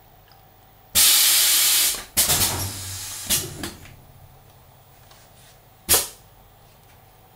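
Pneumatic blow moulding machine for 500 ml bottles running through its cycle: a loud hiss of compressed air for about a second, then several shorter hisses and knocks as the mould moves, and one short sharp hiss of air near the end, over a low steady hum.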